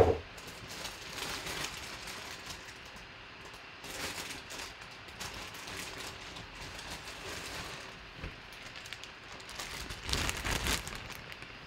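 Clear plastic bag crinkling and rustling as a folded football jersey is pulled out of it by hand, with a louder burst of rustling about ten seconds in.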